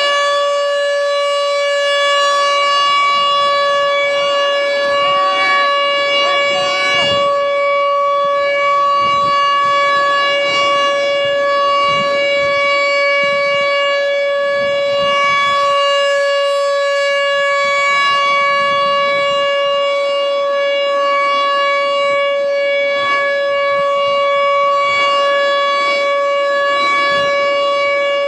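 American Signal T-128 outdoor warning siren sounding a steady single-pitch alert tone during its monthly test, its chopper pitched unusually high.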